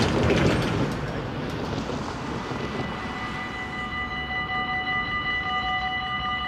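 A truck driving past on the road, its noise fading over the first few seconds. About three seconds in, the level crossing's warning bells start ringing steadily with a rapid pulse, the signal that a train is approaching and the barriers are about to come down.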